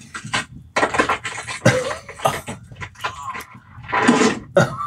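A man's pained yells and cries from a film soundtrack, with a few sharp knocks mixed in; the loudest cry comes near the end.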